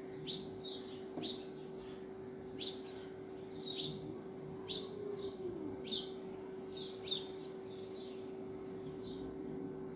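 Small birds chirping, short high calls repeating about once or twice a second, over a steady low hum.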